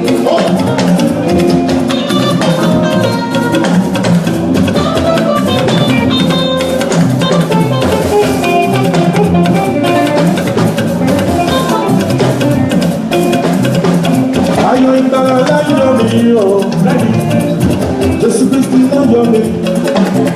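Loud band music driven by a drum kit, with pitched instruments playing over a steady beat.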